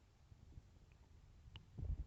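Human stomach growling faintly in a lull, with a short low gurgle near the end and a small click about one and a half seconds in.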